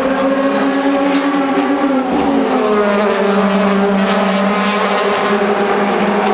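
DTM touring cars' 4-litre V8 racing engines running at speed as several cars come past. The engine note drops about two seconds in, then holds steady.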